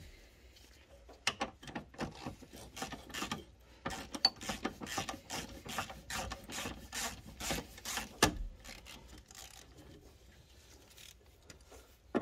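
Hand ratchet with a 12 mm socket clicking in quick runs as it undoes an M8 nut holding a fuel filler neck, with one sharp knock about eight seconds in.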